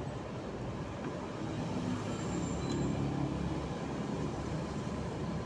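Steady low rumble of motor-vehicle engine noise, growing a little louder with a faint hum from about two seconds in.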